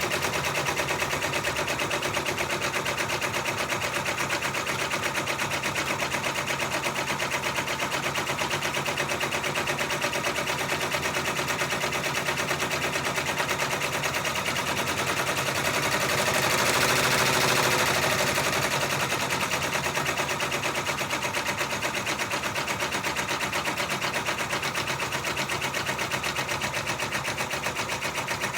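Six-needle embroidery machine stitching out a monogram, a fast, even run of needle strokes. It gets slightly louder for a couple of seconds past the middle.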